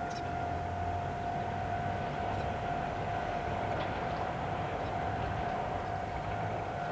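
Isumi Railway diesel railcar running with a steady drone and a constant whine.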